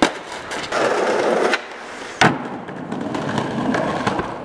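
A skateboard lands with a sharp clack on stone paving and its wheels roll over the pavers. About two seconds in there is another sharp board clack, then wheels rolling over paving stones with small ticks.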